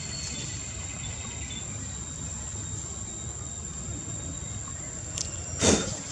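Steady high-pitched insect drone over a low outdoor rumble, with a small click about five seconds in and a sharper knock near the end.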